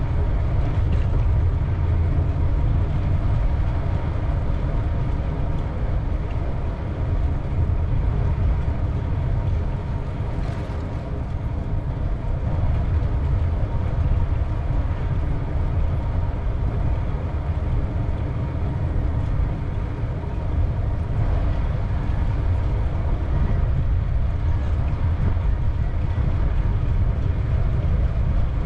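Wind buffeting the microphone of a GoPro action camera riding on a moving bicycle: a steady low rumble with no breaks.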